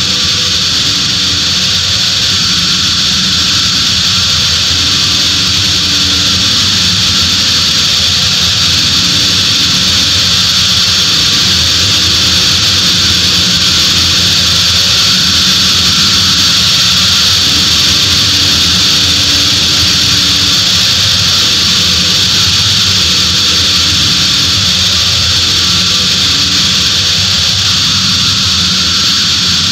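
Death-industrial noise music: a loud, steady wall of hissing, distorted noise, with low droning tones underneath that shift now and then and no beat.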